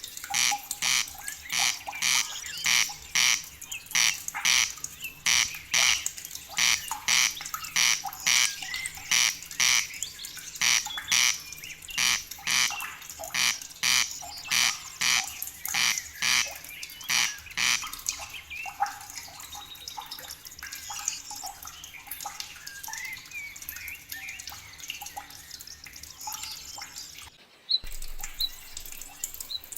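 Loud harsh animal call repeated about twice a second in a steady rhythm, then fading into fainter mixed bird chirps. A brief dropout near the end, after which short high peeps repeat.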